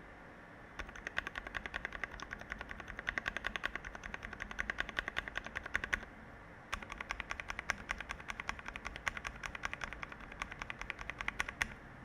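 Fast typing on a mechanical keyboard fitted with Noir Cherry-profile keycaps sold as PBT doubleshot: a quick, steady run of key clacks. It starts just under a second in, breaks off for about half a second around six seconds in, then resumes.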